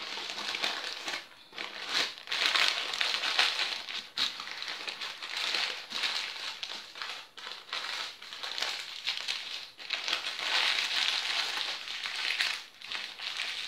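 Baking paper crinkling and rustling as it is rolled and pressed tightly around a filled crepe roll, with the crackle rising and falling unevenly.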